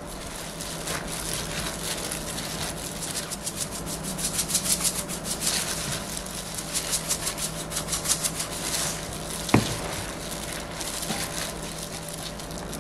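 A plastic-gloved hand tossing and squeezing chili-seasoned julienned radish in a glass bowl: a rapid, rhythmic crinkly rubbing of glove and wet shreds. A single sharp tap comes about three-quarters of the way through.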